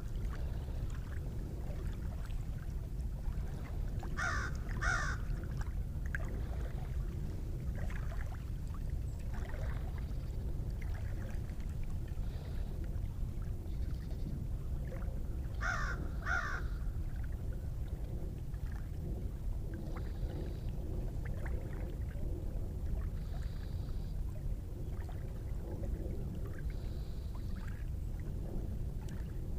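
A bird calling in pairs of short harsh calls, once about four seconds in and again around sixteen seconds in, over a steady low rumble.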